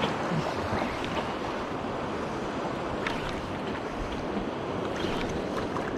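Sea waves washing against a rocky shore, with steady wind buffeting the microphone and a few faint ticks.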